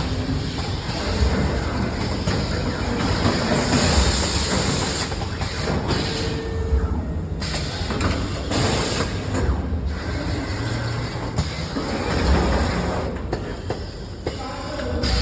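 FC-102 automatic garment folding and bagging machine running: a steady mechanical clatter and rumble with repeated low thumps. Two short bursts of hiss come about four and eight and a half seconds in.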